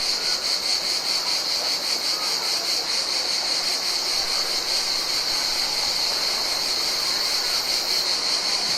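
Summer insects calling in a steady chorus, a continuous high-pitched trill with a fast, even pulsing.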